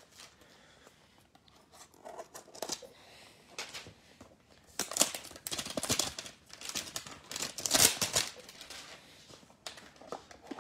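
Panini Playoff football card packaging being handled and opened by hand: irregular crinkling and tearing of pack wrappers and box cardboard, loudest around the middle.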